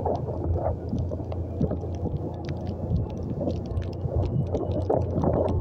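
Motorcycle running along a wet dirt road, with wind buffeting the microphone as it rides. A steady low rumble with many short sharp ticks scattered throughout.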